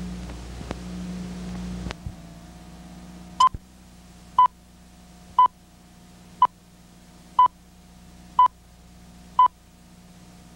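Videotape countdown leader beeping: seven short, high beeps, one a second, a tone marking each number of the countdown. Under them runs a steady low hum with tape hiss, and two faint clicks come in the first two seconds before the beeps start.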